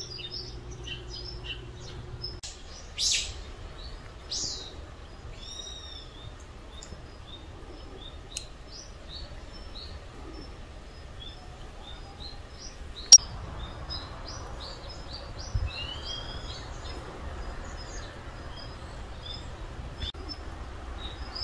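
Wild birds chirping and calling in woodland: many short, high chirps with a few slurred, falling calls, and one sharp click about thirteen seconds in.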